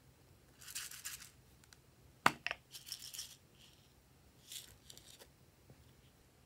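A small plastic bow-shaped container is handled and opened, with one sharp plastic click a bit over two seconds in. Loose plastic confetti and sequins rattle in short bursts as they are tipped out into the slime.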